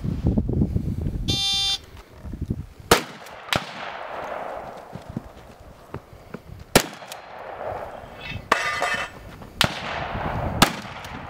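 12-gauge shotgun firing about five shots a few seconds apart, the loudest near 3, 7 and 10.5 seconds. A short high electronic beep sounds about a second and a half in, typical of a shot timer's start signal.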